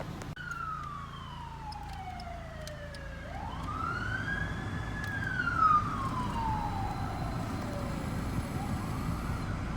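A siren wailing, sliding down in pitch, back up, and down again over several seconds, over a steady low rumble of a running vehicle.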